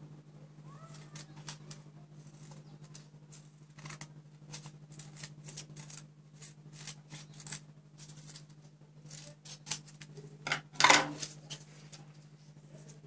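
Scissors snipping paper into strips, in short crisp cuts, with paper strips rustling as they are handled. A louder clatter near the end, over a steady low hum.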